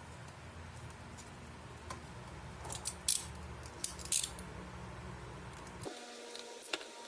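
Small, sharp clicks and light metallic snips from hands handling laptop drive hardware (bracket, screws, drive). The loudest come about three and four seconds in, over a low hum that cuts off abruptly near the end.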